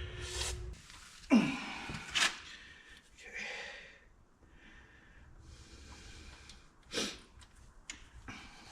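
A man's breathy grunts and exhales while he works a stuck engine part, with a few sharp knocks near the start and again about seven seconds in.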